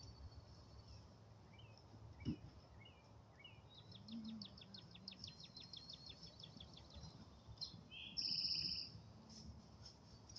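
Wild songbirds calling: a few short chirps, then a rapid, even trill lasting a few seconds, then a loud buzzy note near the end. A single dull knock sounds about two seconds in.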